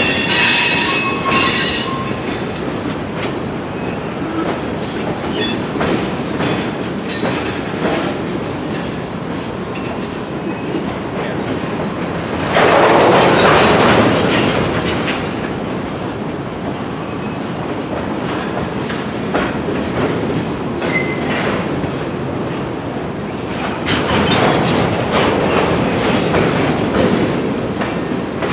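Railroad freight cars rolling through a switching yard, wheels clicking over rail joints and squealing shrilly for the first couple of seconds. About halfway through comes a sudden loud burst of noise lasting a second or so, and the rolling noise swells again near the end.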